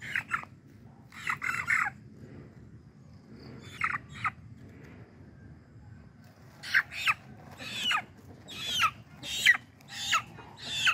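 Chicken squawking in short calls that fall in pitch: a few scattered ones at first, then a quicker run of about seven in the last four seconds.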